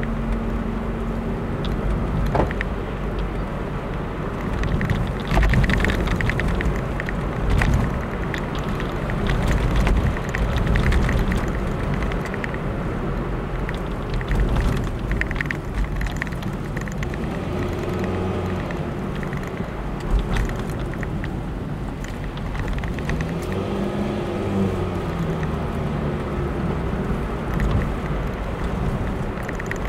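Car engine and tyre noise heard from inside the cabin while driving, with a few short knocks and rattles from bumps in the road. The engine note rises and falls a couple of times in the second half as the car speeds up and slows.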